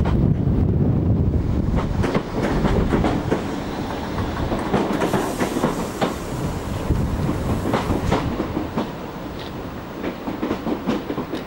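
Passenger train running past on the curve, its wheels clicking over the rail joints in a quickening patter. Wind buffets the microphone at the start.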